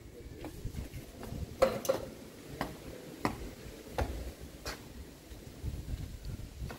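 Footsteps climbing concrete stairs: a run of short, sharp steps, about one and a half a second, that ends a little after the middle.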